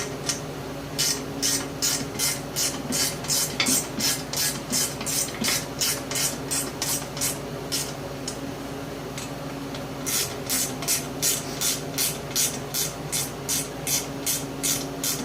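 Screws being driven into the belt guard with a hand screwdriver: short rasping strokes about three a second, in two runs with a pause of about two seconds between them.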